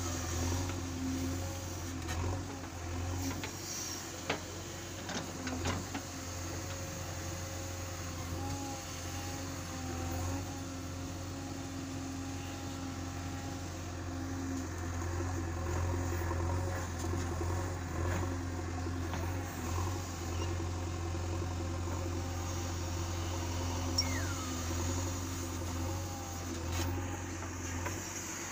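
JCB 3DX Eco backhoe loader's diesel engine running steadily under load while the backhoe digs, with a few short knocks in the first several seconds.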